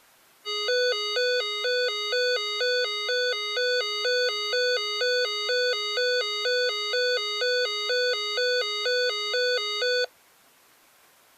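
First Alert SFA1135 weather radio sounding its alert tone for a NOAA Weather Radio Required Weekly Test. It is a buzzy tone flipping between two pitches about twice a second for roughly nine and a half seconds, then it cuts off suddenly.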